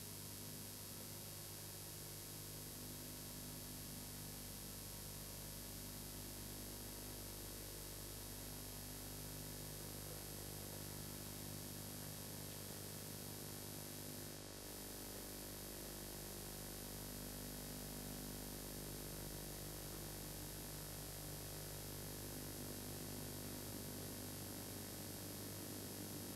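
Steady hiss with a low electrical hum underneath: background noise of the recording, with no other sound. The noise dips briefly about halfway through.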